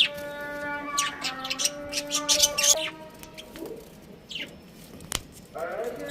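Budgerigars chirping, with short high chirps at irregular intervals over background music whose sustained notes fade out about halfway through.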